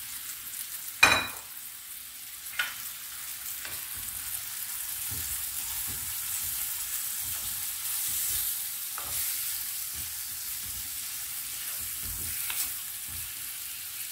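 Carrots, onion and cabbage sizzling in oil in a clay tagine while being stirred with a wooden spoon. A few sharp knocks break the steady sizzle, the loudest about a second in.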